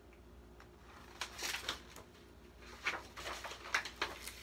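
Paper rustling as the pages of a picture book are handled and turned, in two short clusters of crackles.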